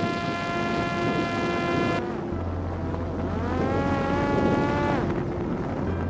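Parrot Disco drone's electric motor and propeller whining at a steady pitch, cutting off about two seconds in. About a second later it spins up again with a rising pitch that sags slightly before cutting off near the end. Wind noise on the microphone underneath.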